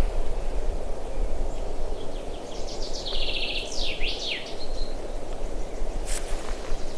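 A small songbird sings one short phrase, a buzzy trill followed by quick sweeping notes, about halfway through, over a steady low rushing background. A single sharp knock sounds near the end.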